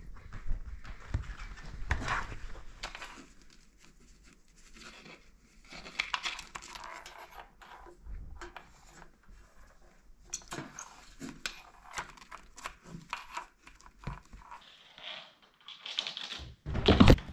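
Scattered rustling, scraping and light thumps of a cat pouncing on and chasing a cable being dragged over fabric and a floor, with a louder knock about a second before the end.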